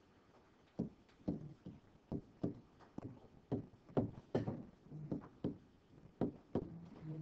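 Short clicks and taps, irregular, about one or two a second, from writing by hand on screen with a pen tool.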